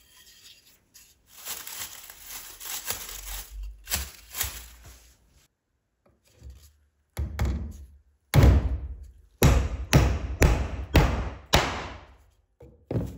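Restored hammer driving a nail into a wooden block: two light setting taps about seven seconds in, then about eight hard blows, roughly two a second, until the nail sits flush. Before the blows, a few seconds of rustling handling noise.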